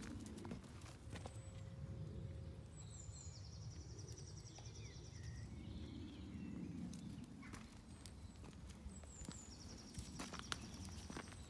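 Footsteps on a gravel lane, with scattered sharp clicks over a low steady rumble. A small songbird sings a rapid high trill twice, about three seconds in and again near the end.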